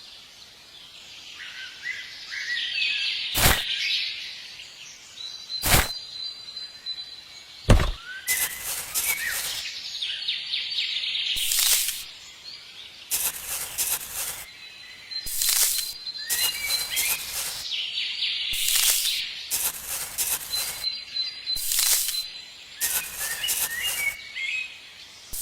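Small birds chirping, with a few single sharp knocks early on and then repeated bursts of rapid clicking every second or two.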